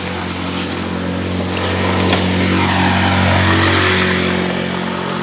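A small motorcycle passes close by on a wet road. Its engine and tyre hiss swell to a peak about three seconds in, then fade as it rides away. Underneath, a steady low engine hum carries on throughout.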